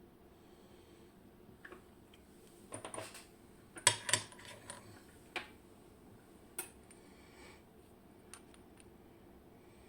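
Small metal parts of a WinkHaus KeyTec N-Tra dimple lock cylinder clinking and clicking as it is taken apart: a quick cluster of clicks about three seconds in, the two loudest clinks near four seconds, then a few single clicks.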